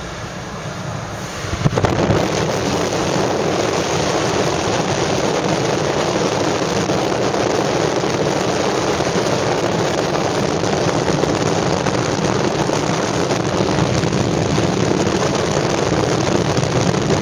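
Steady noise of a moving car heard from inside the cabin, a mix of engine, tyre and wind noise, which gets suddenly louder about two seconds in and then stays even.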